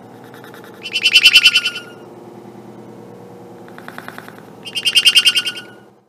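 A pet bird's chirping calls layered from many copies of the same clip playing at once, giving a dense, rapidly pulsing chatter. Two loud bursts come about a second in and near the end, with a fainter one between, over a steady low hum.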